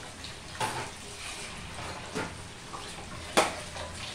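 Food frying in hot oil with a faint sizzle, broken by three sharp clinks of a utensil against the pan about a second and a half apart, the last the loudest.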